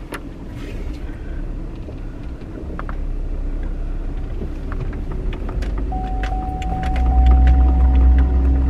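GMC pickup truck heard from inside the cab: a steady low engine and road rumble that grows louder about seven seconds in, with a thin steady whine joining shortly before.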